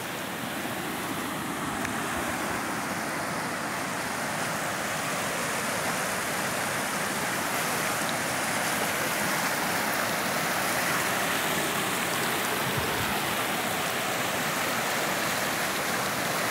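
Muddy floodwater rushing over rocks in a swollen creek carrying a reservoir's overflow: a steady, dense rushing of white water that grows gradually louder over the first several seconds.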